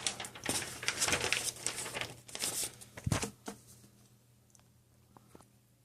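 Rustling, crinkling handling noise for the first few seconds, then a dull thump about three seconds in, followed by a few faint clicks.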